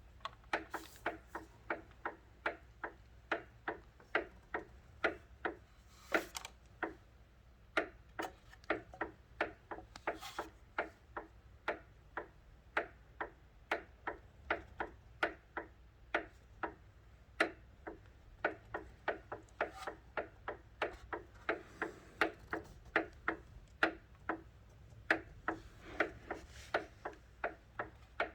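A weird, unexplained ticking: sharp clicks repeating about two to three times a second, unevenly spaced, some coming in quick pairs.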